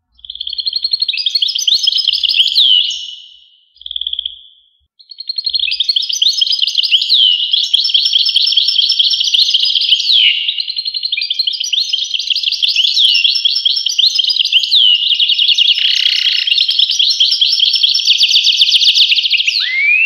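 European goldfinch singing: a fast, unbroken twitter of trills and chirps. It breaks off briefly about three seconds in, then takes up again and runs on.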